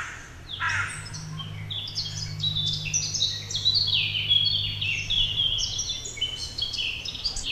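Many small birds chirping together: a dense run of short, quick, downward-sweeping high notes overlapping one another, with a low steady hum underneath.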